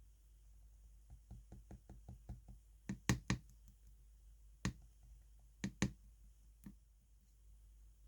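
A run of quick light taps, about four a second, then a handful of sharper knocks, some in pairs, on a hard surface.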